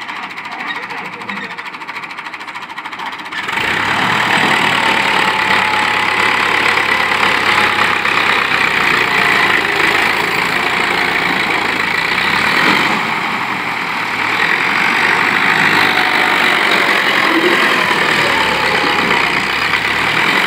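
MF 560 tractor's diesel engine idling, then opening up suddenly about three and a half seconds in and running hard under heavy load. It is straining to pull a trolley heaped with sand, enough to lift its front wheels off the ground.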